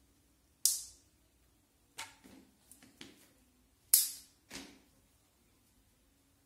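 Two sharp snaps about three seconds apart from a feather wand toy being flicked and whipped about while kittens play, with lighter taps and rustles between them.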